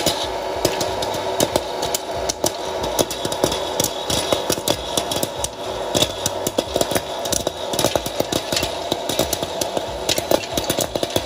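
Hot-air popcorn popper running: its fan blows steadily while kernels burst in rapid, irregular pops, several a second.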